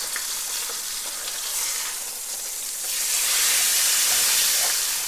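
Rib steak searing in a hot pan: a steady sizzle that swells louder about three seconds in.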